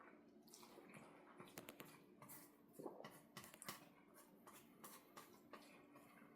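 Faint, wet chewing and mouth sounds of a person eating, with scattered small clicks, over a faint steady hum.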